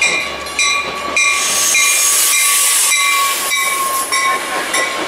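Metra bilevel commuter train rolling past close by, its wheels rushing and clicking over the rails, loudest about a second or two in as the leading cars go by. A steady repeating ding, about two a second, sounds over it.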